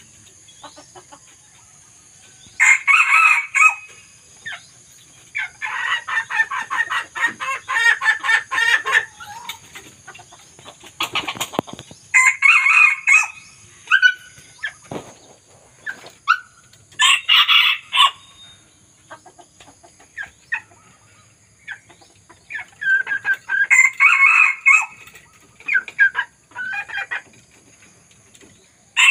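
Red junglefowl roosters crowing again and again, several short crows a few seconds apart, over a steady high-pitched whine.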